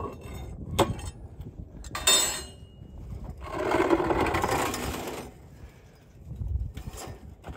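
Press plate of a compressed earth block machine knocking and scraping as it is worked free of the press, followed by loose soil pouring out of the press chamber for about two seconds with a steady hiss.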